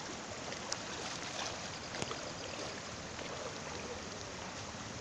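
Steady rushing of a river in flood, its muddy water running over the submerged banks, with a couple of light clicks.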